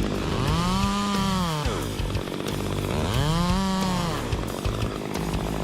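Chainsaw engine running, revved up and back down twice.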